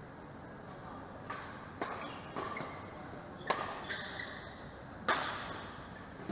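Badminton rackets striking a shuttlecock in a rally, five sharp cracks about half a second to a second and a half apart, the loudest two near the middle and near the end, ringing briefly in a large hall. Short squeaks of court shoes on the mat come between the hits.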